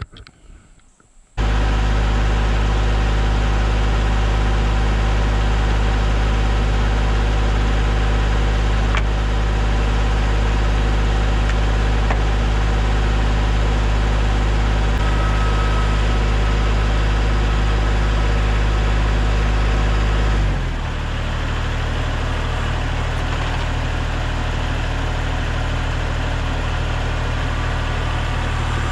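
Tractor engine running steadily. It cuts in abruptly just over a second in, then about twenty seconds in the engine speed drops and it runs on at a lower, slightly quieter pitch.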